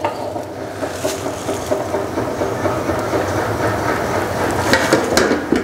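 Hand-cranked four-frame stainless-steel honey extractor spinning steadily, its drum and crank gearing making a continuous mechanical whir, with a few sharp clicks near the end.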